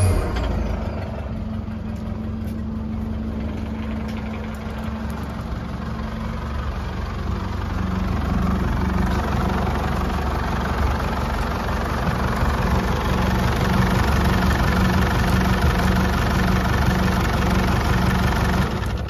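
2010 Holden Colorado's 3.0-litre four-cylinder turbo-diesel idling steadily, a little louder from about halfway through.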